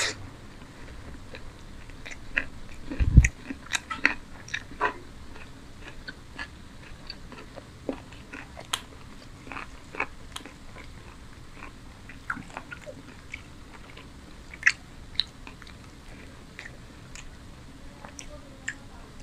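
Close-miked chewing of a mouthful of paratha, chicken curry and raw onion-tomato salad, with irregular crisp crunches and wet mouth clicks, and a low thump about three seconds in.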